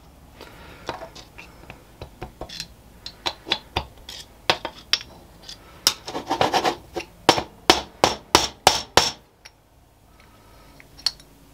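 Light metal taps with a screwdriver on the scroll of a Warco WM180 mini lathe's three-jaw chuck, driving the tight-fitting scroll out of the chuck body. The taps come irregularly at first, then as a quicker run of sharp taps, about three a second, near the end, with some scraping of metal as the scroll shifts.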